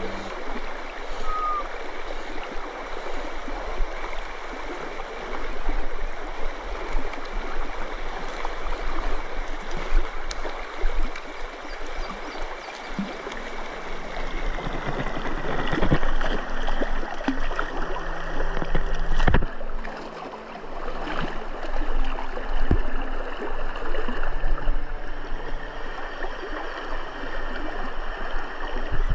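Steady rushing of water over a shallow stream riffle, with a couple of sharp knocks partway through.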